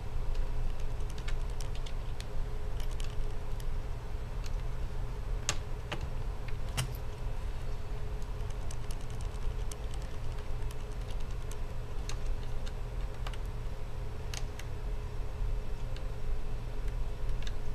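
Light plastic clicks and taps from fingers handling a laptop's display lid and refitting its webcam module, with a few sharper clicks scattered through. A steady low hum runs underneath.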